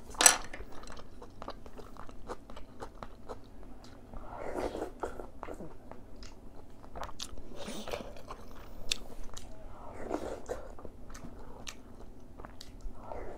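Close-up eating sounds of noodles and ox-bone soup: wet chewing and several slurps of somyeon noodles from a bowl of seollangtang, with many small mouth clicks. A sharp utensil click just after the start.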